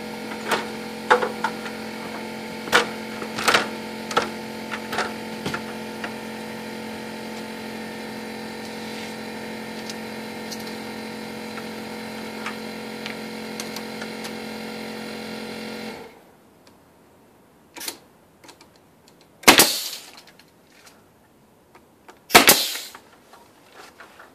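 A motor hums steadily under scattered sharp nail-gun shots, then cuts off suddenly about two-thirds of the way through. Three loud bangs follow, a second or two apart.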